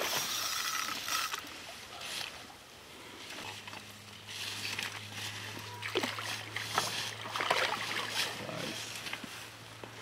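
A hooked grass carp splashing and thrashing at the surface as it is drawn into a landing net at the bank, water sloshing in short irregular bursts. A low steady hum joins about three and a half seconds in.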